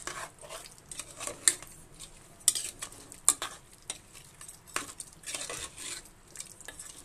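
A spoon stirring a wet chicken curry in a metal pressure cooker: a squelchy stirring sound with several sharp clinks and scrapes of the spoon against the pot.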